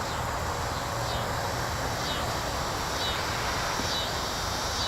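Outdoor ambience: a steady insect hiss, with a short, high, falling call repeated about once a second.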